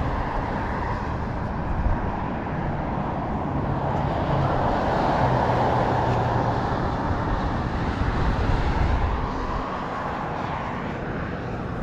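Motor traffic passing on a causeway: a steady rumble of vehicles that swells to a peak about halfway through and eases off toward the end.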